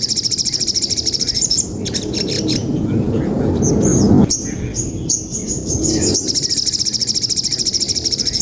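Eurasian tree sparrows chirping in long, fast trains of high chirps, the agitated calling of sparrows fighting. A low rumbling noise swells under the calls in the middle and drops away abruptly just past the halfway point.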